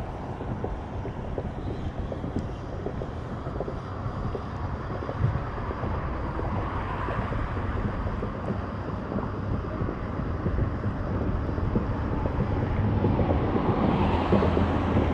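Steady low wind rumble buffeting the camera microphone on open water.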